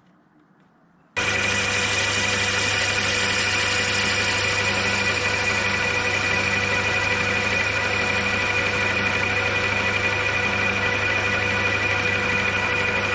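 Lathe running steadily, its parting tool cutting off a length of tube held in the three-jaw chuck, with a constant motor hum and a steady whine. The sound starts abruptly about a second in.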